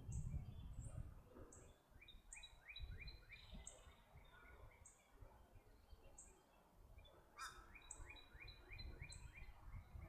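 Faint birdsong. One bird repeats a short, very high note about every two-thirds of a second, and another sings two runs of quick downward-slurred notes, one early and one near the end, over an uneven low rumble.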